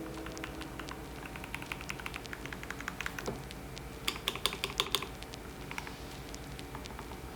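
Typing on an Epomaker TH66 mechanical keyboard with Gateron Pro Yellow linear switches: a steady run of key clacks, with a quicker, louder flurry about four to five seconds in.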